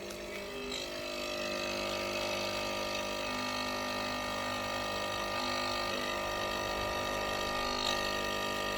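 Nespresso coffee machine's pump buzzing steadily while it brews a coffee.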